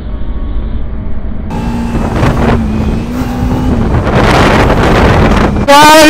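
Sport motorcycle riding along a road, its engine running under the rider, growing louder from about a second and a half in as it picks up speed, with wind rushing over the microphone.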